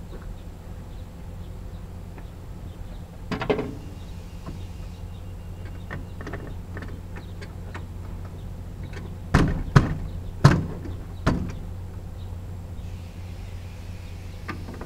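Case 1190 tractor engine idling with a steady low hum, with sharp knocks or clunks over it: one about a quarter of the way in and a cluster of four just past the middle.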